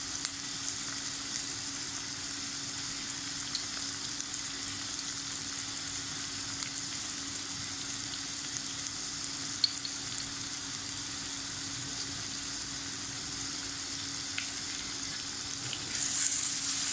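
Chopped onions and tomatoes sizzling steadily in hot oil in a clay pot, with scattered small pops. Near the end a wooden spatula starts stirring them and the sizzle grows louder.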